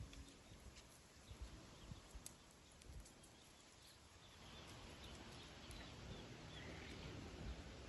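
Near silence: faint outdoor ambience, with faint bird chirps in the second half.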